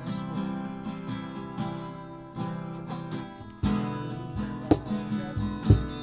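Acoustic guitar strumming chords, growing fuller about halfway through, with low thumps keeping a beat about once a second near the end.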